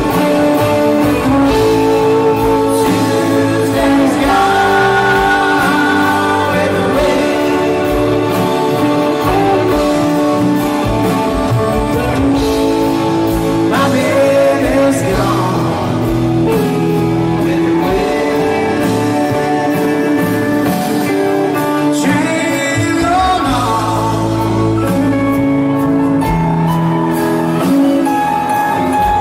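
Background music: a song with a singing voice over a band backing.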